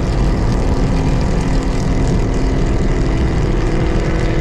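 BMW E92 M3's S65 V8 with a full titanium exhaust, valve open, cruising at a steady highway speed. A loud, even drone that holds one pitch, heard from inside the cabin.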